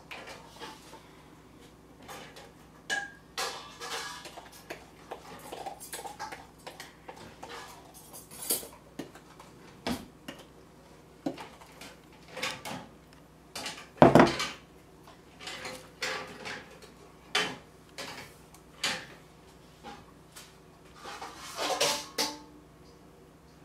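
A spoon and a measuring cup scraping and clinking against a glass mixing bowl as cake batter is scooped out, in irregular taps and scrapes, with one heavier knock about midway.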